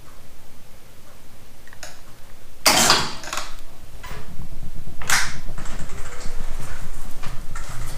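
Metal clanks and knocks as the snow plow is hoisted and swung in on a crane strap, the loudest about three and about five seconds in. A low rumble starts about three seconds in and runs on under them.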